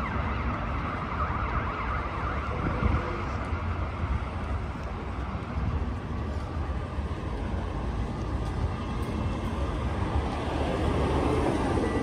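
City street traffic noise with an emergency-vehicle siren wailing through the first few seconds. A vehicle passes more loudly near the end.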